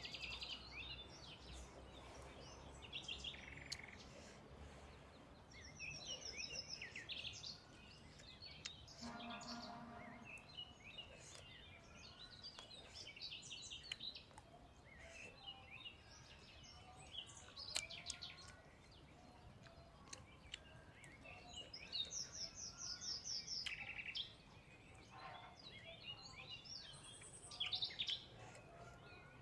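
Birds chirping and singing, with quick trills and repeated short calls, over faint outdoor background noise and a few sharp clicks.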